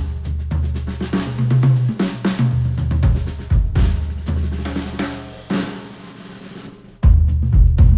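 Pop music with a full drum kit and bass, played through headphones and picked up by microphones. It thins out and fades from about five seconds in, then the full band comes back in suddenly at about seven seconds.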